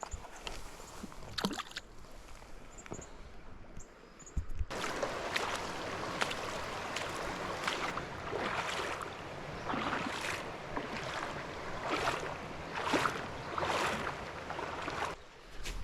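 Legs wading through river water: a sloshing swish with each stride, swelling about once a second, that starts suddenly about five seconds in after a few faint clicks.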